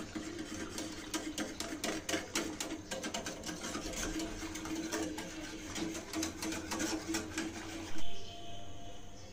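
A wire whisk beating milk in a metal saucepan as it heats to thicken, the wires clicking rapidly against the pan. The clicking stops about eight seconds in with a short loud thump.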